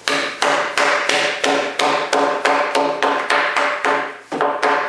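Wooden mallet striking a 6x6 white pine timber, knocking out the sawn waste slices from a brace joint: a steady run of hard knocks, about three a second, each with a brief ringing tone, with a short pause near the end.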